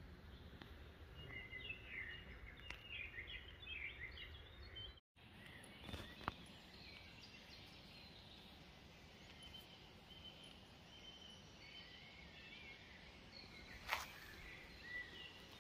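Faint birds chirping over a quiet, steady outdoor background noise, busiest in the first few seconds. The sound drops out briefly about five seconds in, and there are a couple of soft knocks.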